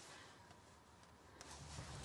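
Near silence inside a car cabin: faint room tone, with one soft click about one and a half seconds in.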